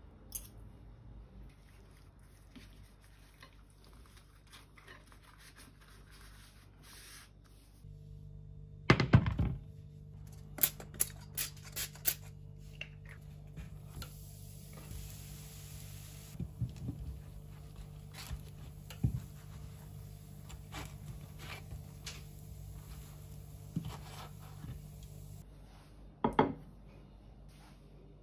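Kitchen handling sounds: a steady low hum from the stovetop area with a heavy thunk about nine seconds in, then scattered knocks and clicks as a tortilla wrap is laid in a nonstick grill pan. Near the end a knife knocks once against a ceramic plate while slicing avocado.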